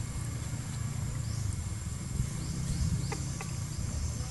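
Outdoor ambience: a steady low rumble with a thin, high insect whine over it and a few short, falling bird chirps. Two faint ticks come about three seconds in.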